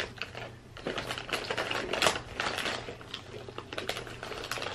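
Plastic snack wrapper crinkling and crackling in the hands, a run of irregular sharp little clicks as it is handled and opened.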